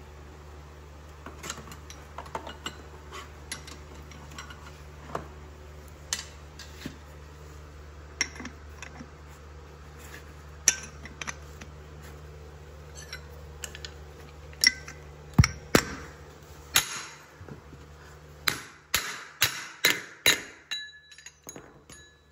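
Steel-on-steel clinks and knocks as a liquid-nitrogen-chilled bearing race is handled and set into a bus wheel hub, ending in a quick run of about six sharp metallic taps as it is seated.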